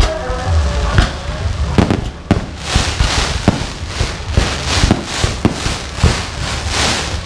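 Aerial fireworks shells bursting in quick succession, sharp bangs about one to two a second, with a crackling hiss from glittering crackle stars that thickens after the first couple of seconds.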